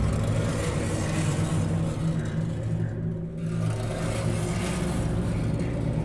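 Dark cinematic background music: a steady low drone with a noisy rumble over it, the rumble thinning briefly around the middle.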